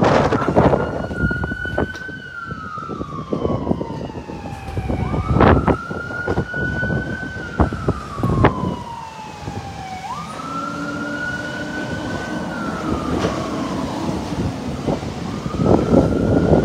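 Emergency vehicle siren wailing, its pitch rising quickly then falling slowly in a cycle about every five seconds. Wind buffets the microphone at the start and again near the end.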